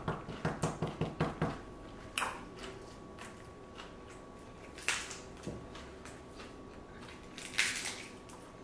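Eating a fresh spring roll of rice paper, lettuce and herbs: a quick run of soft chewing, then three louder, crisp crunches a few seconds apart.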